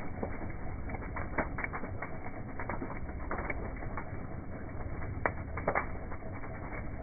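Large wood bonfire crackling: irregular sharp pops and snaps over a steady low rumble. A cluster of louder pops comes past the middle.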